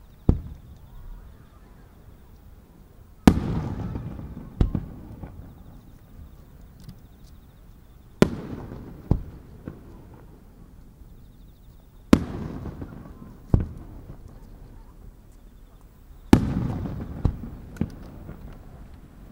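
Aerial firework shells bursting: a sharp bang about every four seconds, each trailing a long rolling echo, with a smaller bang about a second after most of them.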